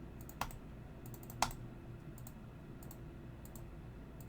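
Light clicks from a computer mouse, many of them in quick pairs, with two sharper clicks about a second apart near the start, over a steady low hum.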